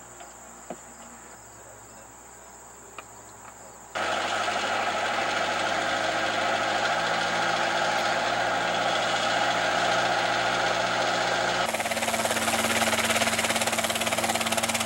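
Crickets chirping steadily with a few faint clicks, then about four seconds in a sudden cut to a small two-seat helicopter running on the ground, its piston engine and rotor turning steadily. Near the end a second cut brings the helicopter lifting into a hover, with a fast, even rotor beat.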